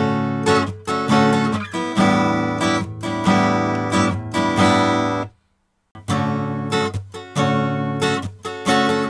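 Acoustic guitar strummed, recorded through a Dave Hill Designs Europa 1 mic preamp at extreme settings, its even- and odd-harmonics controls turned well up. A little past halfway the strumming cuts out for about half a second, then resumes through a Sound Skulptor MP573 preamp.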